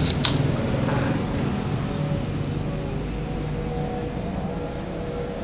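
A drink can is pulled open right at the start: a sharp crack and a short hiss of escaping fizz. After it, a steady low hum of street traffic.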